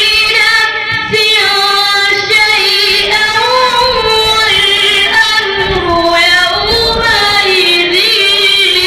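A young boy reciting the Quran (tilawat) in a melodic, ornamented chant. His high voice holds long phrases, gliding up and down in pitch with hardly a break.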